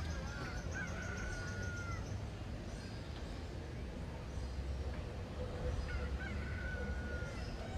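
Urban outdoor ambience: a steady low rumble with two faint drawn-out calls, each dropping slightly in pitch, about a second in and again about six seconds in.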